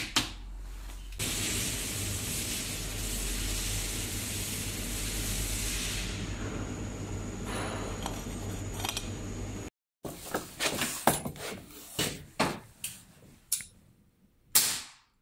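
Metal parts of a slingshot rifle being handled, giving sharp clicks and knocks, with a long stretch of steady rushing noise and a low hum in the middle. After a short break, the clicks and knocks come again as the telescoping metal pole is handled.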